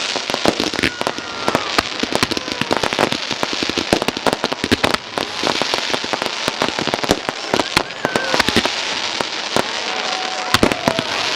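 Fireworks display: a dense, continuous barrage of bangs and crackling pops.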